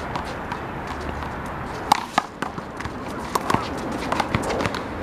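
One-wall handball rally: sharp, irregular smacks of the rubber ball struck by hand and rebounding off the wall, with players' footsteps scuffing the court.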